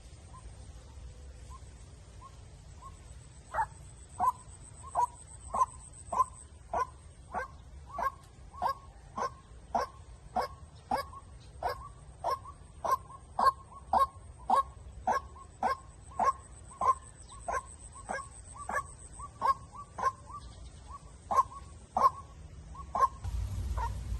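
White-breasted waterhen (chim cuốc) calling a short note over and over, about three notes every two seconds, faint at first and loud from about three and a half seconds in. A low rumble comes in near the end.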